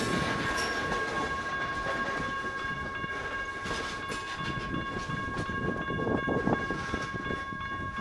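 Freight train, hauled by EMD SD9 diesels, rumbling on out of sight and slowly fading, with steady high-pitched tones held throughout.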